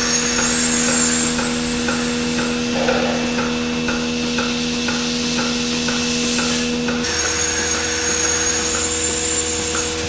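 Milking parlour machinery running: a steady vacuum-pump hum with the pulsators ticking about three times a second. One of the hum tones drops out about seven seconds in.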